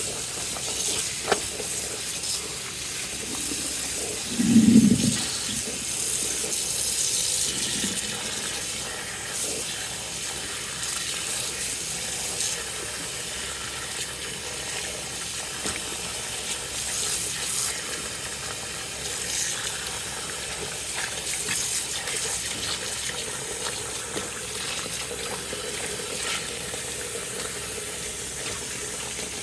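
Tap water running into a basin as vintage flags are rinsed by hand, a steady splashing hiss. A brief low bump comes about four and a half seconds in.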